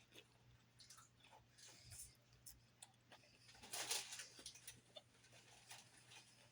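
Faint close-up chewing and crunching of a mouthful of salad, with small scattered clicks and one louder crunch about four seconds in.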